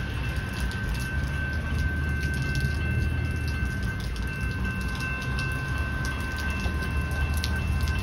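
Level crossing warning bell ringing continuously, its rapid strikes and sustained ring marking an activated crossing, over a low rumble.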